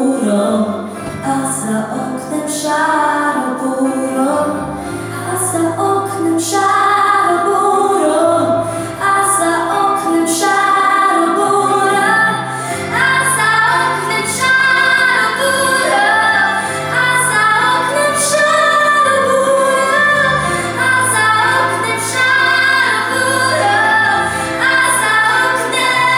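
A young female singer singing a song through a handheld microphone, with instrumental accompaniment underneath that holds low bass notes.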